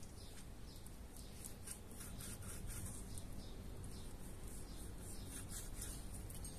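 Knife slicing through raw lamb shoulder on a plastic cutting board: quiet, quick scraping strokes, several a second.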